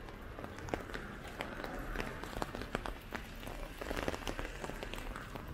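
Heavy hail falling with rain: many small, irregular ticks of hailstones striking the ground and nearby surfaces over a steady hiss.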